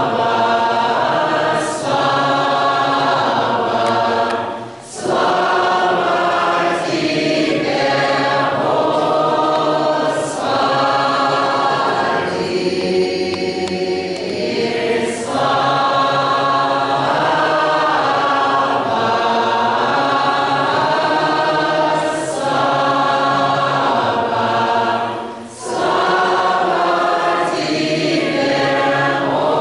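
Doukhobor congregation singing a hymn unaccompanied in many voices, in long held phrases. There are short breaks between phrases about five seconds in and again near the end.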